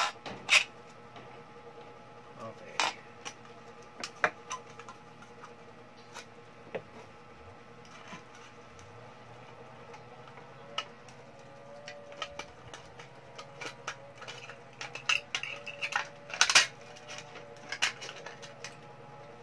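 Scissors snipping through a thin aluminium soda can, with sharp clicks and crinkles of the can's metal as it is cut and handled; the snips come thicker in the last few seconds.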